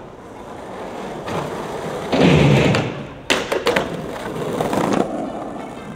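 Skateboard wheels rolling over stone paving slabs, louder for most of a second about two seconds in. A sharp clack a little past three seconds is followed by a few quick knocks from the board, then rolling again.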